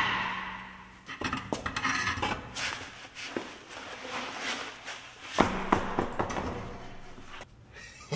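Front wheel and tire of a Dodge Ram 3500 being worked off the hub studs: repeated metallic clunks, scrapes and rattles, with a ringing clatter right at the start and another burst of knocks about five and a half seconds in.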